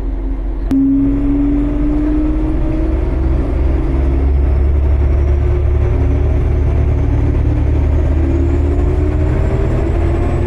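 Kawasemi Yamasemi diesel railcar (a converted KiHa 47) running, with a heavy low rumble. After a short click just under a second in, its engine note rises slowly and steadily as the train pulls away and gathers speed.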